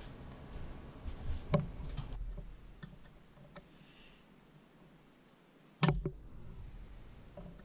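Small steel pick clicking and scraping against a snap ring set in the aluminium case of a ZF five-speed transmission, working to pry the ring out of its groove in the fifth-gear detent bore. Sharp metallic clicks: one about a second and a half in, a few faint ticks, and the loudest near the six-second mark.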